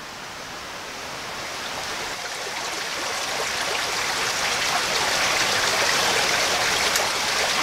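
Small woodland stream rushing over rocks and a shallow riffle: a steady splashing hiss that fades in and grows louder over the first five seconds or so, then holds.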